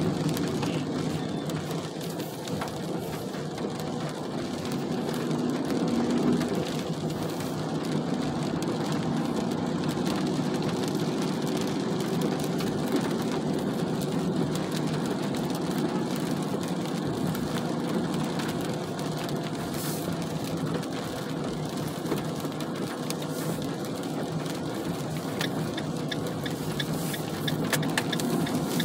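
Steady low rumble of a car driving on wet city streets, heard from inside the cabin, with rain on the windshield and the wipers running. A cluster of sharp ticks comes near the end.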